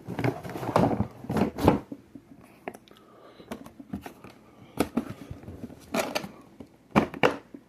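Handling noises from the Shop-Vac's plastic body and filter parts: scattered short knocks, clicks and rustles, several close together in the first two seconds and a few more spread through the rest, with the vacuum switched off.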